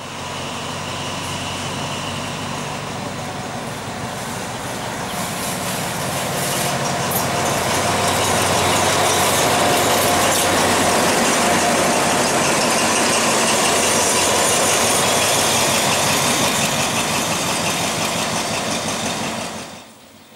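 Diesel locomotive engine running as the locomotive moves past close by on the station track. It grows louder through the first half, holds at its loudest, and cuts off abruptly near the end.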